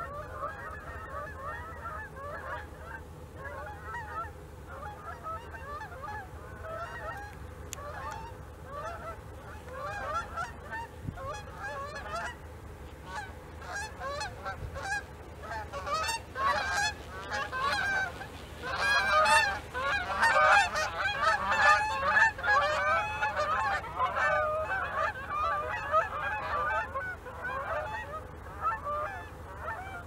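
A flock of Canada geese honking continuously as they fly overhead, many calls overlapping. The honking builds to its loudest about two-thirds of the way through, then eases off.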